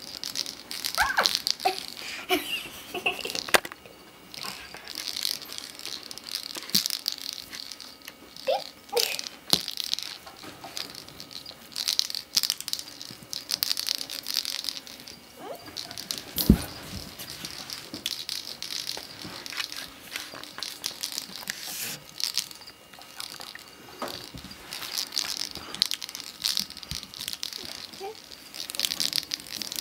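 Irregular rustling, scratching and light clicking as a cat toy on a stick is played with and pet rats move about on carpet by their wire cage. There is one sharper knock about halfway through.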